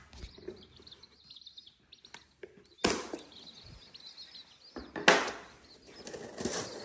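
Baby chicks peeping faintly in their mail-order shipping box, with two sharp snaps about three and five seconds in as the strap is cut and the box is opened.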